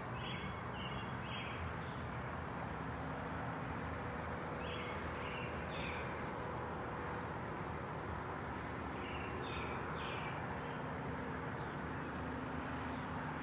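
Steady outdoor morning ambience: a continuous hum of distant road traffic, with birds calling briefly in three small groups, near the start, in the middle and about two-thirds through.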